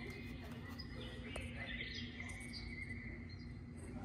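Quiet indoor background: a steady high-pitched hum with a lower steady hum beneath it, and a few faint short chirps.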